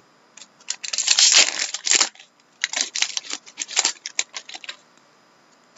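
Hockey trading cards being handled and shuffled by hand: a rustling slide of cards about a second in, then a quick run of card snaps and clicks as the cards are flipped through.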